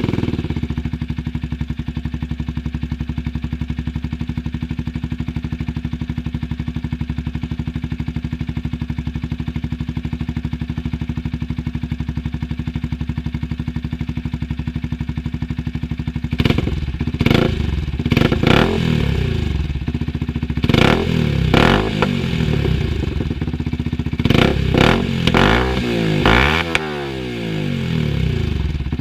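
Yamaha YZF R125's single-cylinder four-stroke engine breathing through a Dominator HP3 aftermarket exhaust, idling steadily, then revved in a series of short throttle blips from about halfway through, each rising and falling in pitch.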